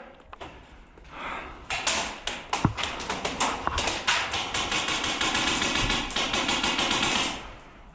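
Airsoft gun firing: a few scattered shots, then a long rapid full-auto stream of clicking shots that stops shortly before the end.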